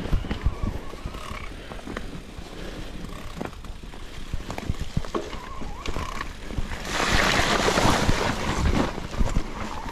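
Wind buffeting a GoPro action camera's microphone on a moving bicycle, with scattered knocks and rattles from the bike over the ground. A louder rush of hiss comes from about 7 to 9 seconds in.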